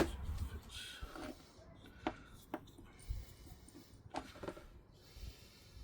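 A sharp click, then a short rustle and a few scattered light clicks and knocks: small wiring parts and heat shrink tubing being handled on a workbench.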